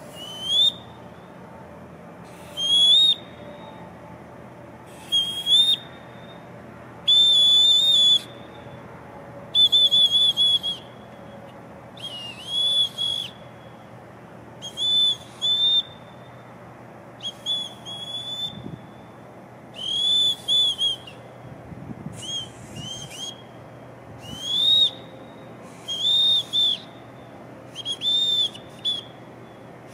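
Boatswain's whistle blown in a long series of short, shrill, very high blasts, one or two every couple of seconds. Some notes are held with a warble, others swoop up or down in pitch.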